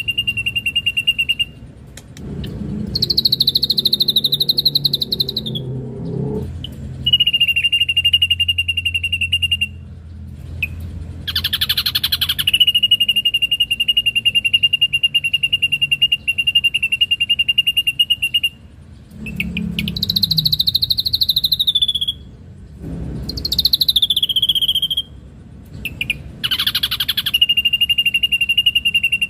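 Ashy drongo singing: long trilled notes held at one high pitch for several seconds at a time, broken by shorter, higher phrases that fall slightly at the end.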